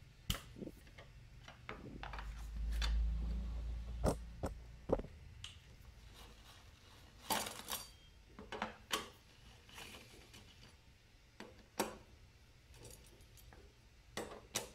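Scattered metallic clicks and knocks of a long-handled 10 mm socket wrench working the bolts loose on a Yamaha Xeon scooter's engine side cover. A low rumble runs from about two seconds in to about five seconds in.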